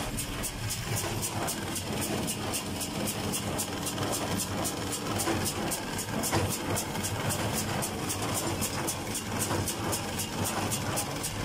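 Fendt 310 tractor engine running steadily under load, heard from inside the cab, as it pulls a John Deere 349 square baler picking up hay. A fast, regular ticking runs over the engine hum.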